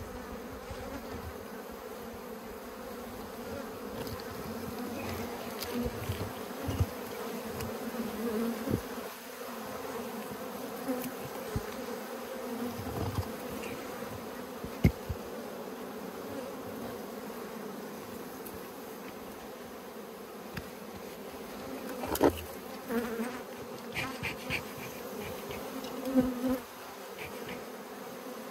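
Wild honeybee colony buzzing as a low, steady hum, with a few short knocks and handling noises, the loudest about halfway through and again near the end.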